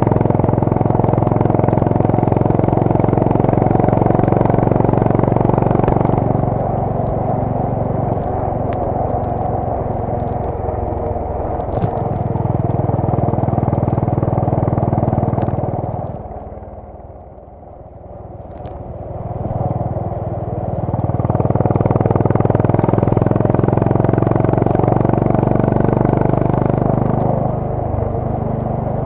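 Honda CB350 RS's air-cooled single-cylinder engine and exhaust running while the bike is ridden. The note eases after about six seconds, drops away sharply for a few seconds past the middle, then builds back up, and eases again near the end.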